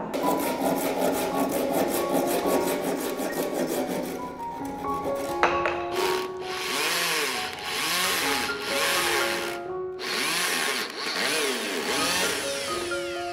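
Wood being worked with a steady rasping and rubbing for about five seconds. Then a corded electric drill drives a long screw into tree branches in about six short bursts, its motor pitch rising and falling as the trigger is squeezed and released. Soft background music with piano-like notes plays throughout.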